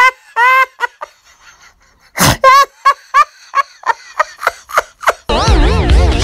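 A young woman's excited high-pitched squeals and gasps, breaking into a run of quick laughing pulses. About five seconds in, music starts abruptly.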